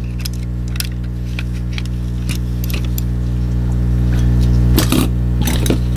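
Plastic shell of a computer mouse being handled and set down on a silicone mat: scattered light clicks and knocks, the loudest cluster about five seconds in, over a steady low hum.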